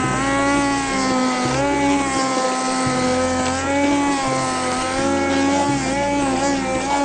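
Electric immersion hand blender running in a pot of tomato soup, puréeing it, with a steady motor whine whose pitch dips briefly now and then as it is worked through the soup.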